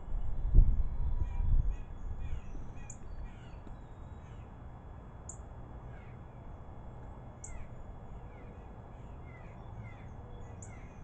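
Wild birds calling: many short downward-sliding chirps, with a high thin note repeating about every two seconds. A loud low rumble fills the first two seconds.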